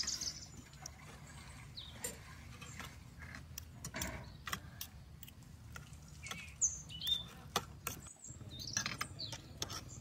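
Small birds chirping now and then in short high notes, with scattered sharp clicks of spoons against plates.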